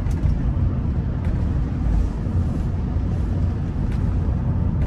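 Car driving along: a steady low road and engine rumble with no changes, heard from inside the cabin.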